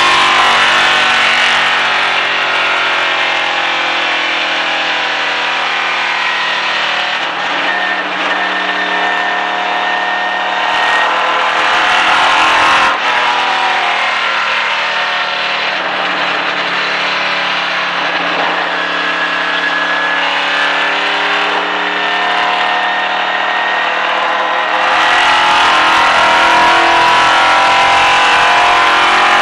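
Stock car's V8 engine running hard at speed, heard from inside the cockpit over steady wind and road noise. The engine pitch drifts slowly up and down through the lap, with one sharp knock about 13 seconds in. The engine gets louder and fuller about four seconds before the end.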